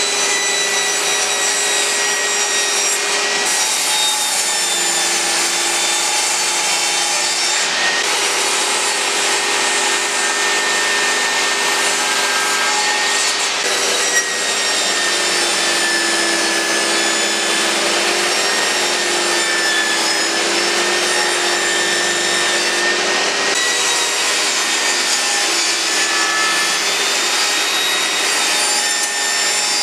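Makita table saw running and cutting wooden boards: a steady, loud blade whine and sawing noise, the whine dipping slightly in pitch around the middle.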